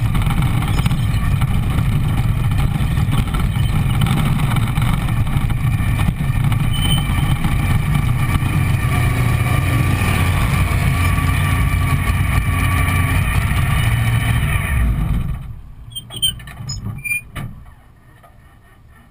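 Chevy-powered dragster engine idling steadily, then shut off about fifteen seconds in, running down within about a second. A few sharp clicks follow.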